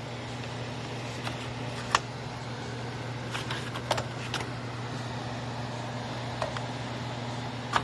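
Steady low hum of running HVAC equipment, with a few sharp clicks and knocks from handling an air filter at the air handler.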